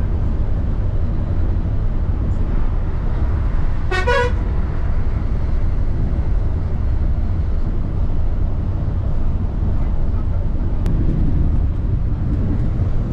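Steady low rumble of a Volvo B8R coach's diesel engine and tyres at highway speed, heard from inside the cab, with one short horn toot about four seconds in.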